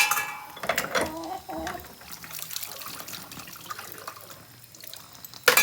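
Dishes being washed at a sink: water running and splashing while a bowl is scrubbed. A sharp, ringing clink of dishware comes at the start and again near the end.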